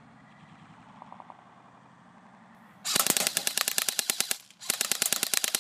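Airsoft M4 electric rifle firing on full auto: two bursts of rapid clicking shots, each about a second and a half long, with a short pause between them, starting about three seconds in.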